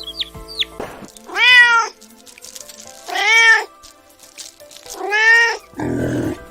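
Domestic cat meowing three times, about two seconds apart, each meow rising and then falling in pitch, over light background music. A short, rough, low sound comes in near the end.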